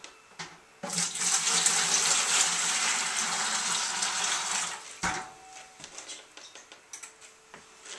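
Water poured from a one-gallon pitcher into a plastic brewing bucket, a steady rushing splash for about four seconds that then stops, as the brewing water is measured in; a single knock follows about a second later.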